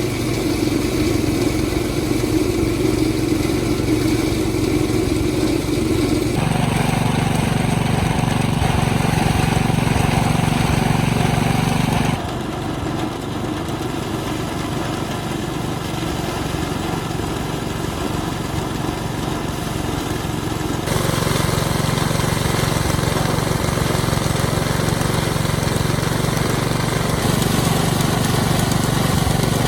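A small engine running steadily, its tone changing abruptly three times.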